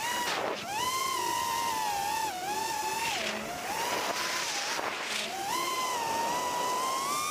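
FPV quadcopter's brushless motors and propellers whining, the pitch wavering up and down with throttle, dipping in the middle and climbing near the end, over a steady hiss of air.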